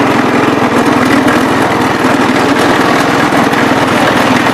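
Gravely 408 walk-behind tractor's engine running steadily close by, with a rapid, even firing rhythm, while it pushes snow with its front blade.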